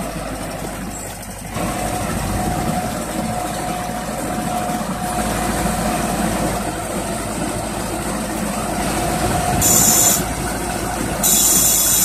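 Farm tractor engine running steadily under load while towing a mini round baler that picks up straw. Near the end come two short bursts of high hiss.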